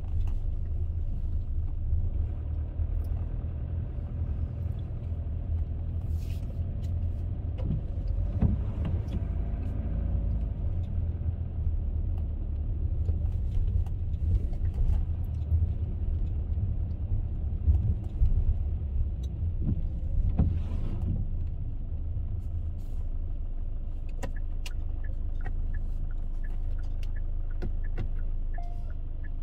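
Car on the move: steady low road and engine rumble, with scattered light clicks and knocks.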